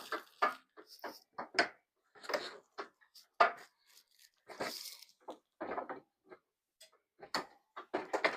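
Irregular clicks, knocks and rustles of hands working a metal prop frame, fitting the torso frame onto the leg poles and fiddling with the spring pins that snap them into place. About a dozen short separate noises with brief pauses between them.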